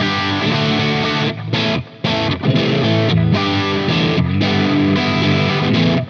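GrassRoots G-SNAPPER 24/M electric guitar played through an overdriven (drive) tone: picked riffs and strummed chords, broken by a few brief stops.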